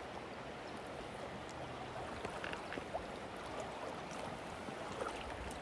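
Steady rush of a flowing creek, with a few faint clicks over it.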